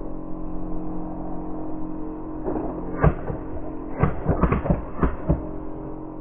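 Steady mechanical hum from the coin-blocking contraption's small motor, with a coin and its plastic levers and paddles clacking: a couple of sharp clacks about three seconds in, then a quick run of them between four and five and a half seconds.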